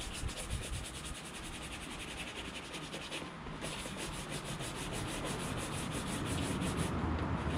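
A shoe being cleaned by hand for a shine, with rapid back-and-forth strokes on the leather. The steady scrubbing briefly eases about three seconds in and again near the end.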